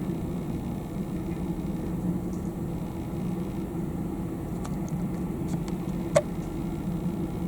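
Steady low mechanical hum, like an engine running at a distance, with a single sharp click about six seconds in.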